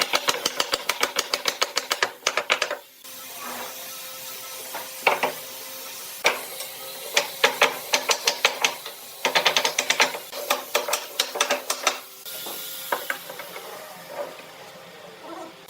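Quick runs of sharp taps on wood, about six to eight a second, in several bursts with short pauses between.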